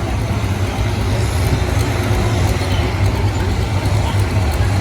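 McCormick farm tractor engine running hard under load while pulling the weight sled, a steady low drone.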